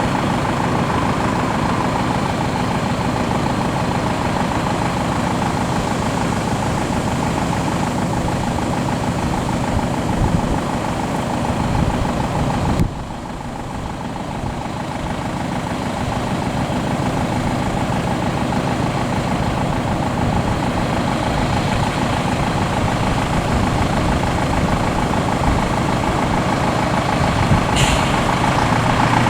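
Fire engines' heavy diesel engines running with a steady rumble. The sound drops suddenly about thirteen seconds in and then builds back up.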